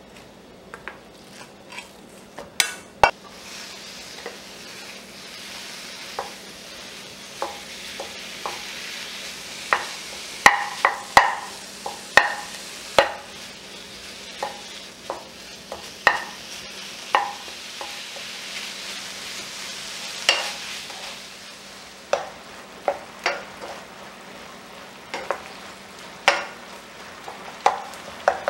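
Ground beef with green chili peppers sizzling in a nonstick frying pan, a wooden spoon repeatedly knocking and scraping against the pan as the meat is broken up and stirred. The sizzle starts about three seconds in, as the raw meat goes into the pan, and eases off toward the end as the beef browns.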